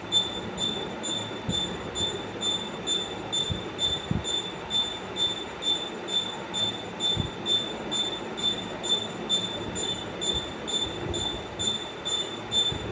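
A high-pitched squealing whine that pulses evenly about twice a second, like a rotating device turning steadily, over a low rumbling noise with a few soft thumps.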